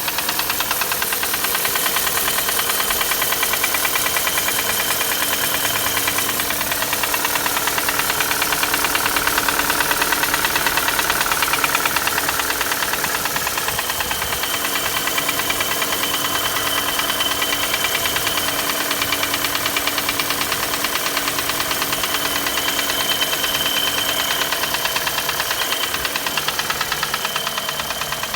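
Chevrolet Cruze 1.8-litre Z18 four-cylinder engine running with a fast, steady metallic knock at every turn of the engine. The knock is the fault the recording is made to show.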